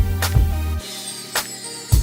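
Background music with a steady drum beat; the bass line drops out a little under a second in, leaving the drums and lighter upper parts.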